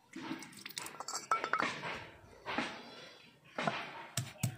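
A steel bowl clinking and rattling as peeled garlic cloves are tipped out of it onto a stone grinding slab, then handled. Near the end, two sharp knocks as a stone pestle starts crushing the garlic on the slab.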